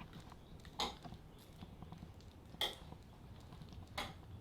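Three short, sharp clinks spread over a few seconds, over faint room noise.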